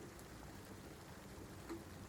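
Steady rain falling, with a few single drops landing close by, one more distinct near the end.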